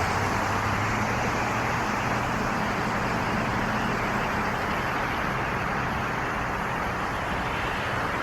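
Steady road vehicle noise with a low engine hum, unchanging throughout.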